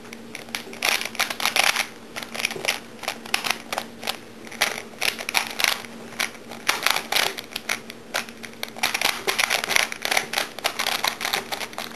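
Rubik's Cube layers being turned by hand, a rapid irregular run of plastic clicks and clacks.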